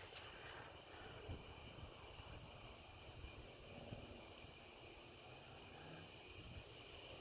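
Faint steady chorus of night insects, a continuous high trill, over a low rumble of wind on the microphone.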